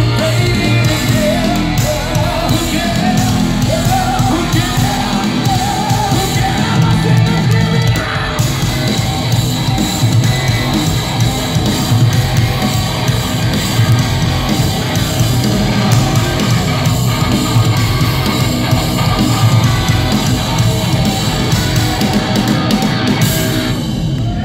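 Live heavy metal band playing: distorted guitars, bass and drums, with a male singer over the first several seconds. The song stops right at the end.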